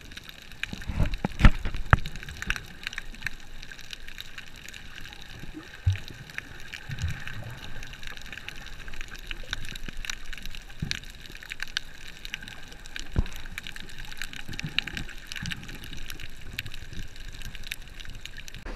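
Underwater sound picked up by a camera held by a swimming snorkeler over a coral reef: muffled water movement with many scattered clicks and crackles, and a few low thumps, heaviest about a second in.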